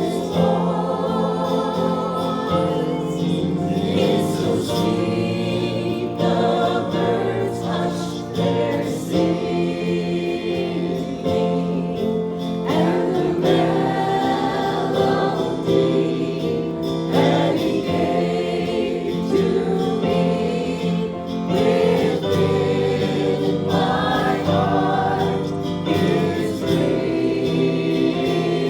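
Gospel hymn sung by a congregation or choir with instrumental accompaniment, steady throughout.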